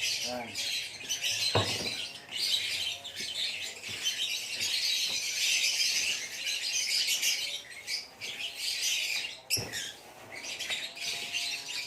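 A flock of caged lovebirds chirping and chattering continuously at a high pitch. Two sharp clicks cut through, one about a second and a half in and another near the end.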